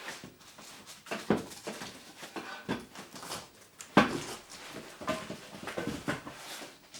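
Unpacking noises: metal display-case frame bars and cardboard packing being handled, with irregular knocks and rustling and one louder knock about four seconds in.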